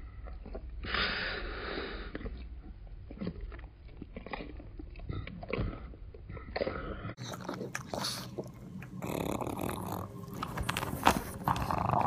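Pug gnawing on a chew treat: a string of irregular wet chewing clicks and smacks, mixed with snuffly breathing through its flat nose.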